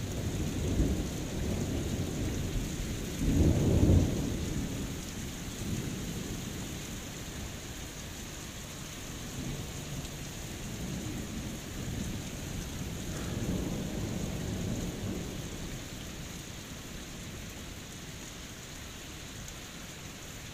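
Heavy rain pouring down steadily, with thunder rumbling over it: a strong roll in the first few seconds, loudest about four seconds in, and a weaker rumble about two-thirds of the way through.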